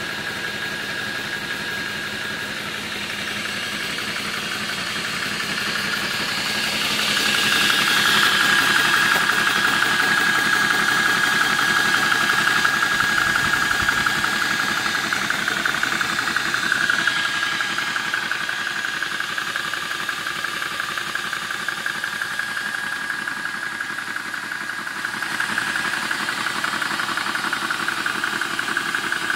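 Apolo 300-bar portable PCP air compressor running steadily with a rapid pumping beat and a high whine as it pumps an air rifle to near its 300-bar limit. The sound grows louder about seven seconds in and eases back after about ten seconds.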